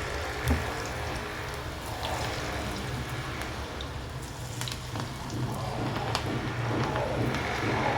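Vegetable pakoda batter sizzling and crackling in hot oil as it is added to deep-fry, with a small knock about half a second in.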